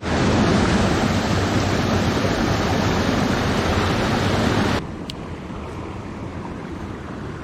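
Strong wind blowing, a steady loud rushing noise with no distinct events, mixed with running river water. It drops abruptly to a quieter level about five seconds in.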